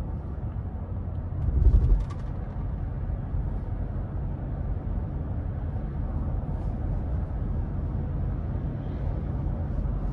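Steady low road and engine rumble inside the cabin of a Ford F-150 with the 5.0-litre V8, cruising at a constant speed. About two seconds in comes a brief, louder low thump with a couple of faint clicks.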